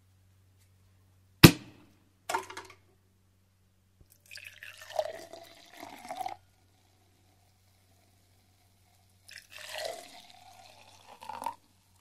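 Sparkling wine bottle uncorked with a sharp pop, followed by a short fizzing burst. Then two separate pours of the fizzing wine into glasses, each lasting about two seconds.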